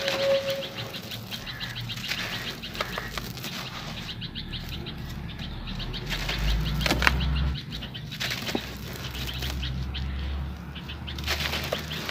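Dry sand-cement chunks crushed and crumbled by hand, the crumbs and dust falling onto a wet tray. A dense gritty crackle, with a sharper crack about seven seconds in.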